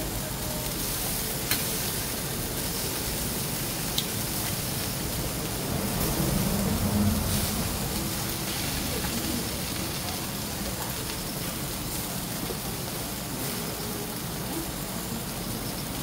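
Eel pieces sizzling steadily on a wire mesh grill, with a couple of faint clicks in the first few seconds.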